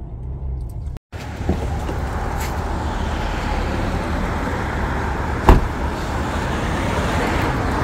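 Car driving, with steady road and wind noise that grows louder after a brief cut about a second in. A single sharp knock sounds about five and a half seconds in.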